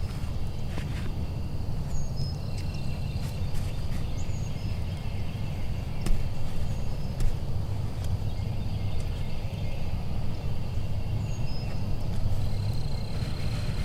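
Osceola wild turkey gobbling, over a steady low rumble of wind on the microphone. Thin high songbird chirps come and go.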